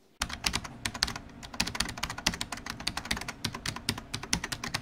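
A rapid, irregular clatter of sharp clicks over a low rumble, like fast typing, from an edited-in glitch and static transition sound effect. It starts a moment in and keeps a fast, uneven rhythm for nearly five seconds.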